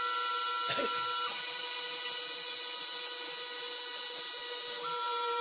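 Rotary-tool spindle of a homemade CNC router running at high speed, its two-flute end mill cutting a groove in tape-covered MDF. It makes a steady whine of several tones, one of which shifts slightly about a second in and again near the end. There is a short low knock just under a second in.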